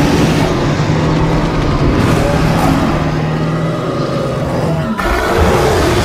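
Creature roar sound effect: one long, deep roar holding a steady low pitch, cut off abruptly about five seconds in as another roar begins.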